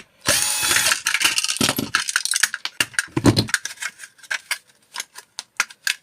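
Clicks and clinks of hand tools and small metal parts while a microwave is taken apart: a short scraping rush near the start, then a run of quick, irregular sharp clicks that thin out toward the end, with one dull knock around the middle.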